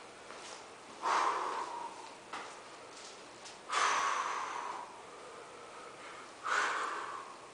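Three forceful, loud breaths by a weightlifter, a couple of seconds apart, as he psyches himself up over the bar before a lift.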